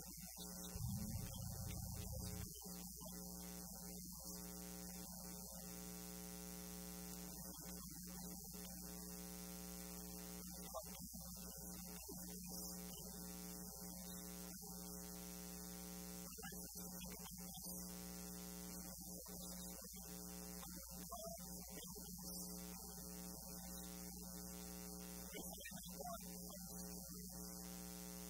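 Steady electrical hum with a buzzy stack of overtones, unchanging throughout. A brief low rumble comes about a second in.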